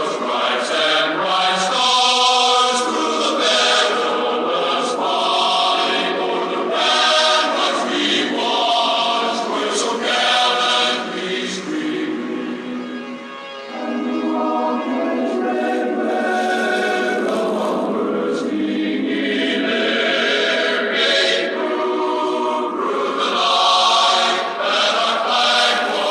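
A choir singing a national anthem in slow, held phrases. The sound is thin, with no bass.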